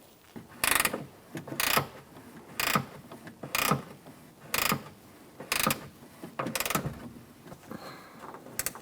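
Ratchet wrench clicking in repeated short strokes, about one a second, as it tightens the nut holding an exterior door handle onto its stud. The last strokes near the end are fainter and run together.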